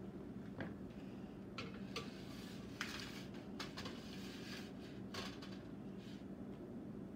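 Metal baking sheets clattering and scraping as they are slid onto the wire racks of an open electric oven, in a string of light clanks and knocks, over a low steady hum.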